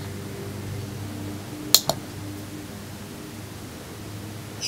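A small tactile push button on an electronic dice circuit board is pressed and released once, giving a quick double click, over a steady low hum. A short high chirp comes right at the end.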